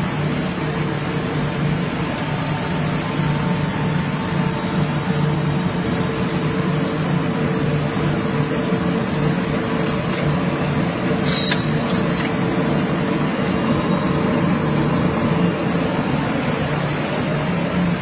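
A multi-station roll printing press running: a steady mechanical hum and rumble of its turning cylinders, with three short hisses about two-thirds of the way through.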